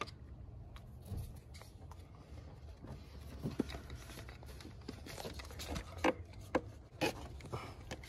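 Pliers squeezing spring hose clamps and rubber coolant hoses being worked off and onto their fittings: scattered light clicks and rubbing, with a few sharper clicks in the second half, over a steady low hum.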